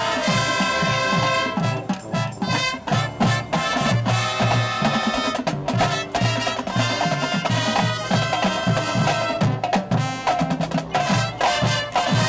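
High school marching band playing at full volume: brass holding chords over a drumline hammering out rapid, accented strokes.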